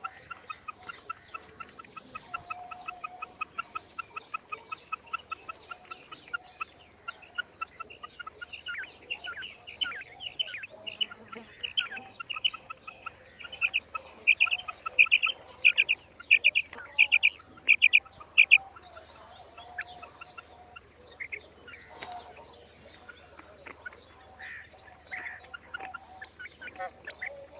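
Female quail calling: a fast series of short notes at about four a second, then louder, more spaced notes about twice a second through the middle, then scattered calls near the end.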